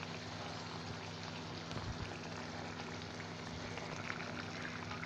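Thin spiced gravy simmering in a cooking pan, a steady fine bubbling and crackling fizz over a low steady hum, with one soft low thump about two seconds in.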